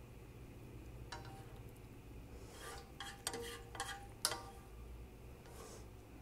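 Wooden chopsticks stirring noodles and broth in a large enamelled pot, knocking against the pot a few times with short ringing clicks, most of them between about three and four and a half seconds in.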